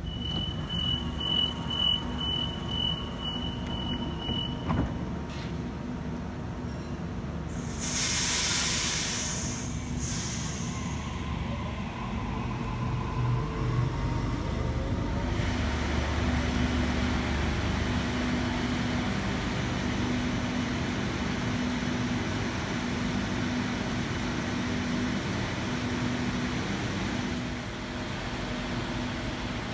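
Sydney Trains Waratah double-deck electric train: the door-closing warning tone beeps for about four seconds, the doors shut with a click, and then comes a burst of air hiss. After that the train pulls away, its traction motors whining up in pitch over a steady hum.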